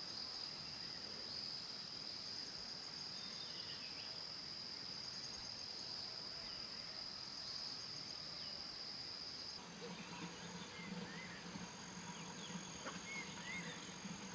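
Insects chirring in a steady high pitch, with a few faint bird chirps. About ten seconds in the chirring changes to a thinner, higher tone and a low hum joins it.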